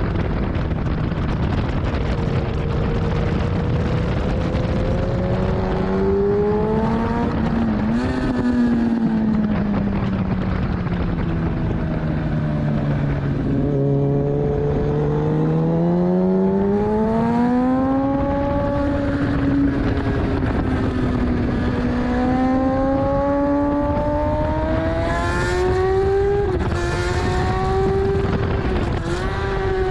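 Kawasaki ZX-10R's inline-four engine at speed on track: its pitch falls as the bike slows for a corner about a third of the way in, then climbs hard again, with quick breaks at upshifts near the end. A steady rush of wind noise runs underneath.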